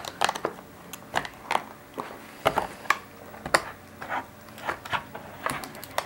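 Stiff clear plastic packaging being pried and forced open by hand: an irregular run of sharp plastic clicks and cracks, the strongest about two and a half and three and a half seconds in.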